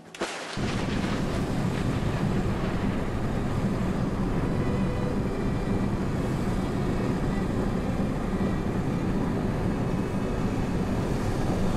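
Steady road and wind noise from a car driving on a wet highway: a continuous rumble and hiss that starts abruptly about half a second in.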